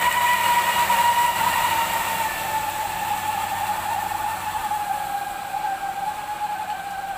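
Loaded dump truck pulling away up a slippery dirt road, its drivetrain giving a steady whine that slowly falls in pitch and fades as it moves off.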